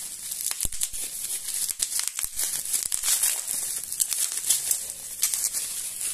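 Plastic bubble wrap crinkling and crackling with many small sharp clicks as it is handled and pulled off a small glass bottle.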